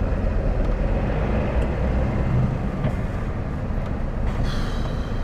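Lorry engine running steadily, heard from inside the cab of a car-transporter truck waiting at a roundabout, with a short hiss near the end.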